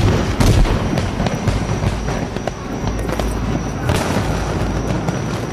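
Dramatic soundtrack music: a low sustained drone under booming percussion hits and crackling noise. The hits are loudest near the start, with another strong one about four seconds in.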